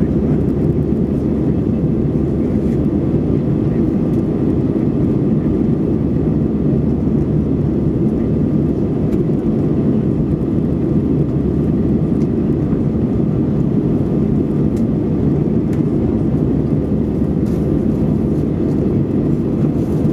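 Airbus A320 cabin noise during the climb: the engines and the airflow over the fuselage make a deep, even rumble heard inside the cabin, steady throughout with no change in pitch.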